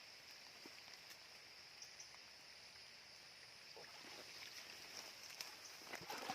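Quiet rural ambience with a faint, steady high insect buzz and a few soft rustling sounds near the end.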